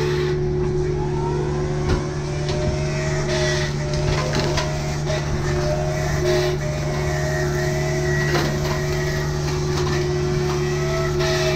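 Kubota U55 mini excavator's diesel engine running steadily while the hydraulic MTL XC5 brush cutter head spins, its whine sagging near the start and climbing back as it cuts. Scattered short snaps and knocks of brush and branches being hit.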